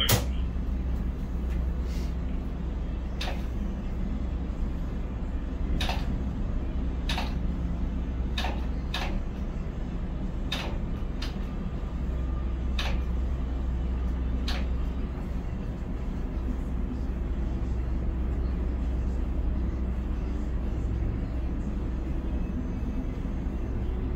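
Steady low drone of a Konecranes ship-to-shore container crane's machinery, heard inside the operator's cab while the hoist lowers the spreader. Short sharp clicks and knocks come every second or two, mostly in the first half.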